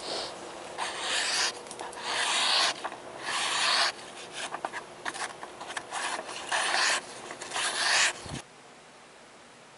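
Handmade 5160 spring-steel knife blade slicing through a sheet of printer paper, a paper-cutting test of the edge's sharpness. Eight or so rasping slicing strokes come about one a second and stop abruptly after about eight seconds, followed by faint steady hiss.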